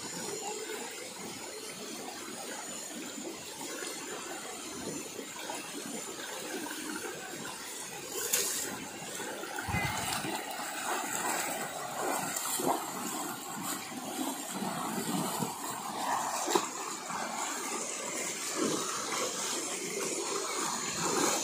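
Shallow rocky stream running, with a few brief splashes as people wade through the water.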